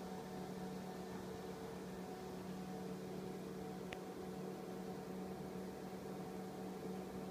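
Steady hum and hiss of running bench test equipment (an HP 54110D digitizing oscilloscope and a function generator), its cooling fan and mains hum droning evenly. One faint click about four seconds in.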